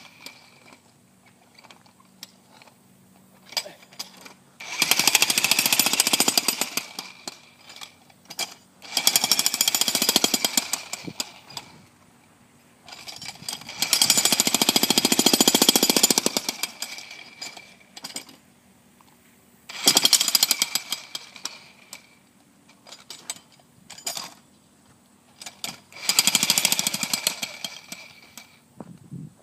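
Jackhammer breaking up concrete, run in five bursts of rapid hammering of one to four seconds each, with short pauses between them.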